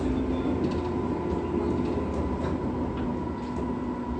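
Inside a 415 series electric train's motor car running at speed: the MT54 traction motors hum at a steady pitch over the rumble of the wheels on the rails.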